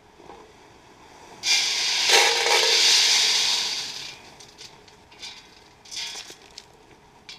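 Corn feeder at a bear bait being test-run: the spinner motor whirs and kernels spray out for about two and a half seconds, starting about one and a half seconds in. A few shorter, quieter rustles follow.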